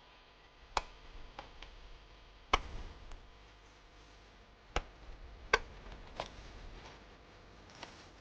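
A hand digging tool striking stony ground while a trench is dug, giving about five sharp, irregularly spaced knocks, the loudest two about two and a half and five and a half seconds in.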